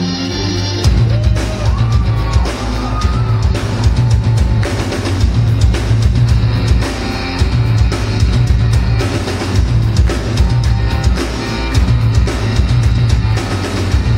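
Heavy metal played live on amplified, distorted cellos with a full rock drum kit; the drums come in hard about a second in under the cellos' driving low riff.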